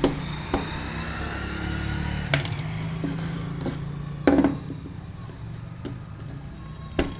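Scattered sharp clicks and knocks of hand tools and wiring against a contactor board as terminals are being connected, the loudest about four seconds in, over a steady low rumble.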